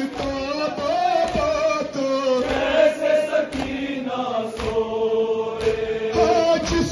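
Men's voices chanting a noha, a Shia mourning lament, in unison with long held, slowly sliding notes. Sharp thuds fall roughly once a second, the beat of chest-beating (matam) that goes with the lament.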